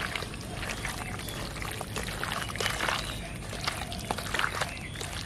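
Hands squeezing and turning raw chicken pieces in wet spice paste and mustard oil in a steel bowl: continuous wet squelching and slapping, dotted with small clicks.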